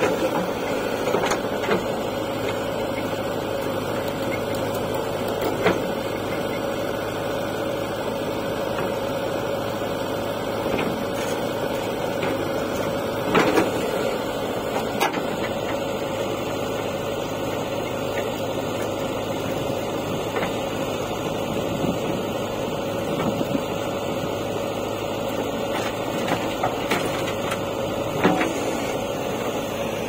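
JCB 3DX backhoe loader's diesel engine running steadily with a constant whine as the backhoe arm digs, broken by a few short knocks.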